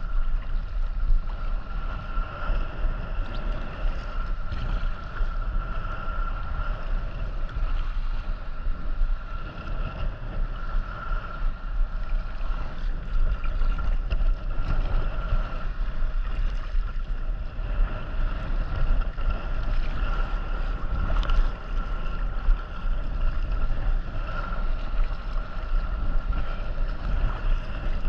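Wind buffeting the microphone on a kayak at sea, with water noise and a steady high whine held underneath.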